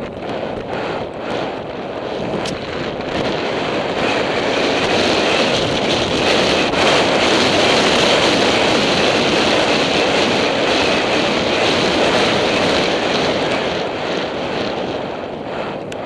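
Heavy wind buffeting a helmet-camera microphone as a horse gallops, swelling to its loudest in the middle and easing near the end, with the galloping hoofbeats faint underneath.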